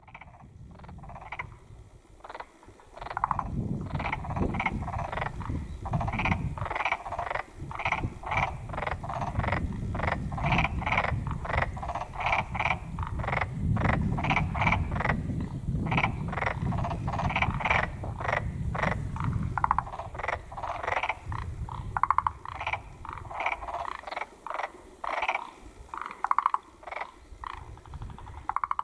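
Black-spotted pond frog (tonosama frog) calling: short croaks repeated two or three times a second in long runs. A low rumble sits underneath.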